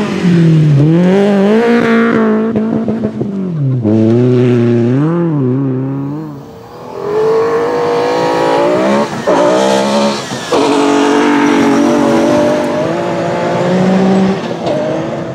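BMW rally car engine at full throttle, the revs climbing and dropping several times through quick gear changes. The sound falls away briefly about six seconds in, then builds again as the engine revs hard.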